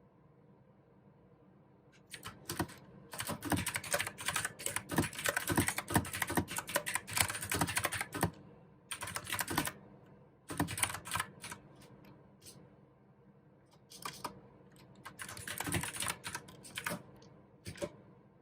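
Typing on a mechanical keyboard with clicky blue switches: a long fast run of keystrokes after a short pause, then shorter bursts with gaps between them, and a single keystroke near the end.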